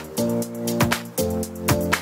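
Background music with a steady beat of sharp percussion hits over sustained chords that change every half second or so.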